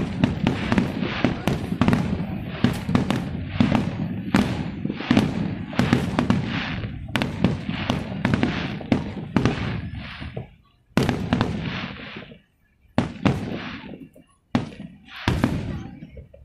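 Aerial fireworks shells bursting in rapid succession in a display finale: a dense, overlapping run of bangs with rumbling tails for about ten seconds, then a few single booms with short gaps between them near the end.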